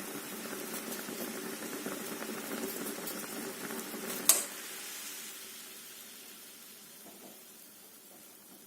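Water boiling hard in a pot of potatoes and eggs, bubbling steadily over a low hum. A little over four seconds in there is a single sharp click; the hum stops and the boiling gradually dies down.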